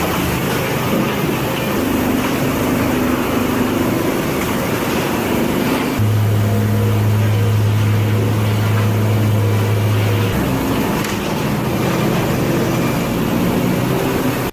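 Automated sawmill machinery running: a dense, steady mechanical din with a low hum. The hum grows much stronger for about four seconds in the middle, then drops back.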